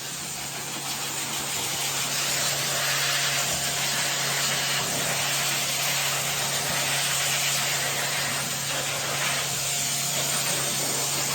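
A steady hiss with a low hum under it, like a small motorised appliance, growing a little louder over the first couple of seconds and then holding even.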